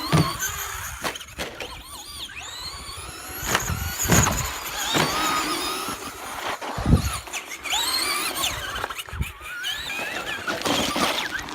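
Electric RC cars' motors whining, the high pitch rising and falling repeatedly as they speed up and slow down, with a few heavy thumps, the loudest about seven seconds in.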